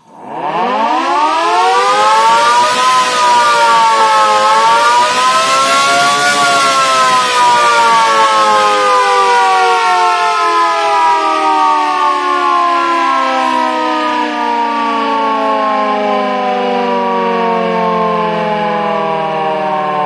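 Double-headed electric motor siren (a rotor-type hooter) starting from silence and winding up in pitch over about three seconds, dipping briefly, climbing again to its highest pitch about six seconds in, then slowly winding down while still loud.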